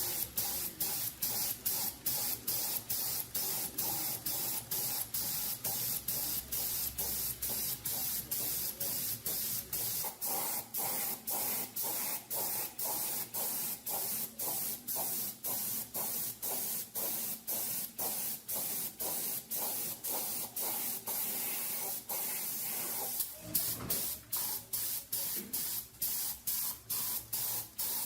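Paint spraying: a steady high hiss broken by short, regular dips about two to three times a second.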